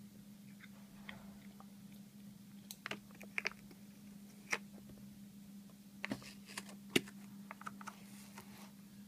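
Cardboard product box being handled and opened: scattered clicks, taps and crinkles of the packaging, the sharpest about seven seconds in, over a steady low hum.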